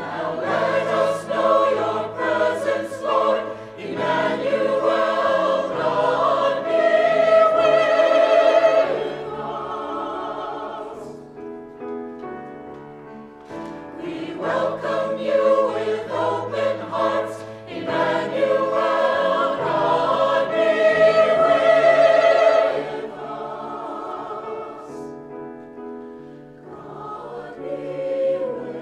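Choir singing a sacred piece with instrumental accompaniment, in two phrases that each build to a loud held note and then fall back quieter.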